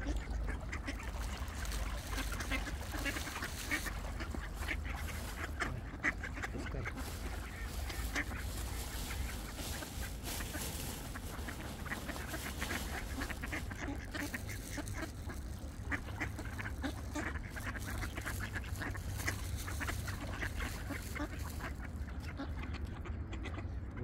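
A flock of ducks quacking and calling continually, many short calls overlapping, over a steady low rumble.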